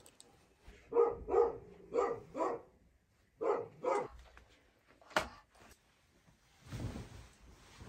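A dog barking six short times in three pairs, followed by a single sharp click and a soft rustle of a heavy quilt being handled.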